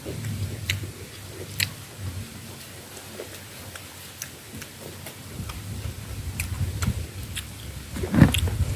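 Close-up eating sounds: chewing, with scattered small clicks and taps, over a low rumble of strong wind on the microphone. A louder bite or knock comes near the end.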